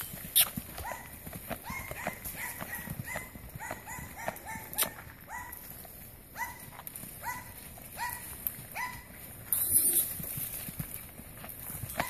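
Hoofbeats of a saddled young Quarter Horse filly moving around a dirt round pen, with a short rising squeak repeating about twice a second. A brief rush of noise comes about ten seconds in.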